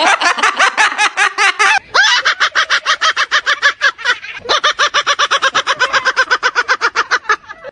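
A pet bird calling in a fast chatter of short pitched notes, about eight a second, in three long runs with brief breaks between them.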